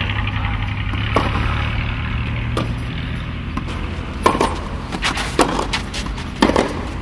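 Tennis rally: sharp racket strikes on a tennis ball roughly every second or so, some loud and close, others fainter from across the court.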